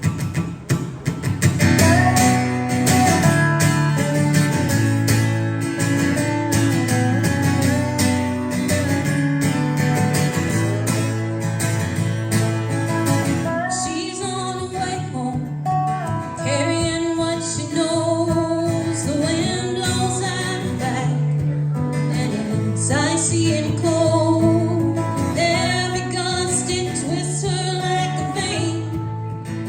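Live band playing the intro of a country song, led by strummed acoustic guitar over a steady full-band rhythm. About halfway through, a melody line with bending notes comes in on top.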